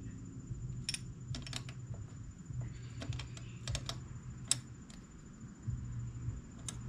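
Scattered light metallic clicks and taps of two 10 mm wrenches on a throttle cable's lock nut and adjuster barrel as the cable is tightened.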